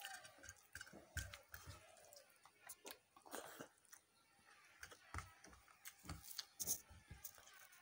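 Quiet close-up chewing of rice and curry, with many small scattered mouth clicks and soft thumps.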